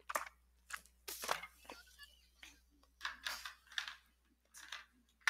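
About ten short, irregular rustling and crackling noises from something being handled close to a microphone, over a faint steady hum.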